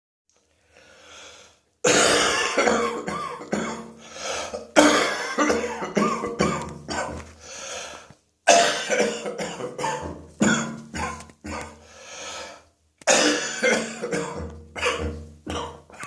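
A person's wet cough from a throat infection, coming in four fits. Each fit opens with the loudest cough and trails off into a string of smaller ones, with short pauses between fits.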